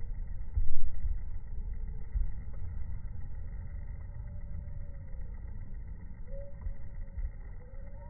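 Low, gusty rumble on a smartphone's microphone, with one loud thump a little under a second in.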